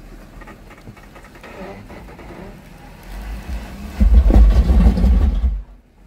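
Jeep Wrangler JK Rubicon's V6 engine running on an off-road obstacle. About four seconds in, a loud, deep booming rumble from the Jeep lasts about a second and a half, giving good bass, then stops suddenly.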